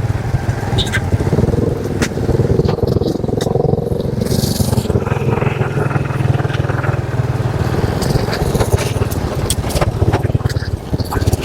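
Motorcycle engine running steadily while riding, with frequent short clicks and rattles over the drone.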